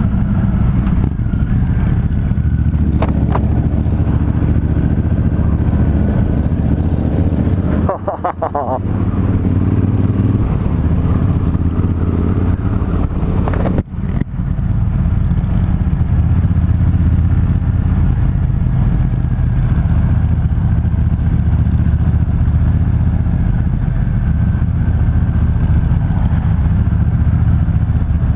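Several motorcycle engines rumbling steadily in a group, among them a Triumph Thunderbird Storm's parallel twin. The engine note dips briefly twice, about 8 seconds in and again near 14 seconds.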